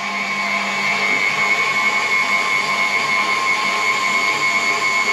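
Electric mixer running steadily with a constant motor whine, whisking egg whites as hot sugar syrup is added for a meringue.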